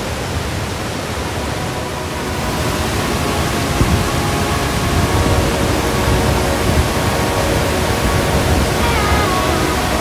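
Loud, steady roar of a 100 m waterfall: an even rushing noise of falling water that swells slightly about three seconds in.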